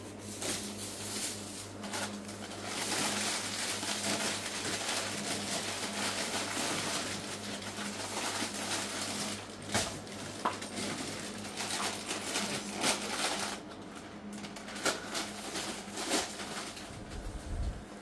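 Plastic snack wrappers and a plastic carrier bag rustling and crinkling as they are handled and packed, with scattered sharp clicks. A low steady hum runs underneath.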